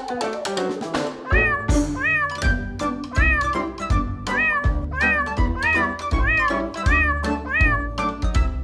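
Music with a steady beat, carrying short meow-like calls that rise and fall in pitch and repeat in quick runs on the beat.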